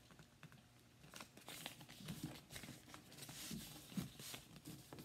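Faint rustling and crinkling of a sheet of paper being folded and creased by hand, in short scattered strokes that pick up about a second in.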